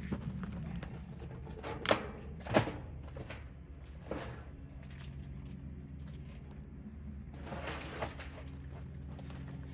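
Two sharp knocks about half a second apart, a softer one a little later, and light handling noise over a faint steady hum: objects being handled while unpacking a server rack battery cabinet.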